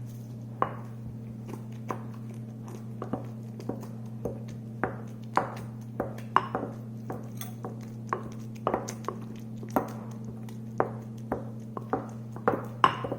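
Wooden masher, a wooden garlic press, pounding and mashing roasted eggplant in a bowl: short knocks and squelches at uneven intervals, roughly one or two a second, over a steady low hum.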